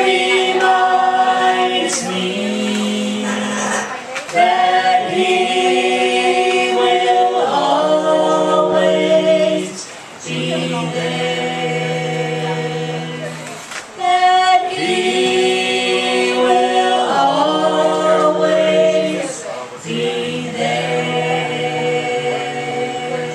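Small mixed group of men's and women's voices singing a gospel song in close harmony, in slow phrases of long held chords.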